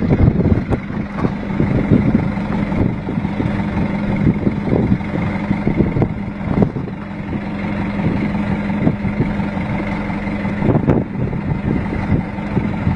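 Boat's engine running with a steady low hum, over a wash of water along the hull and a few short knocks.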